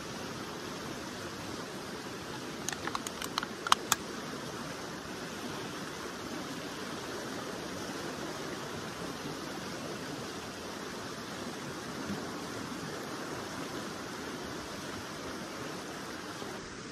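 Steady rush of a river running over rocks, with a quick run of sharp clicks about three seconds in.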